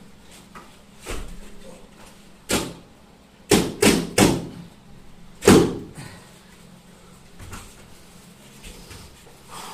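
Sharp slaps and thuds of bodies and hands hitting foam floor mats during grappling: a few single hits, a quick run of three about three and a half seconds in, and the loudest about five and a half seconds in.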